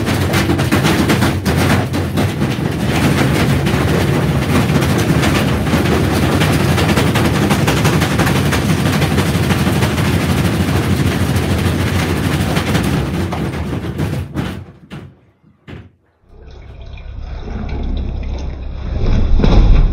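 Washing machine running hard with loud, continuous rattling and banging. It dies away and cuts off about fourteen seconds in. A quieter machine sound with a steady high whine then starts and grows louder toward the end.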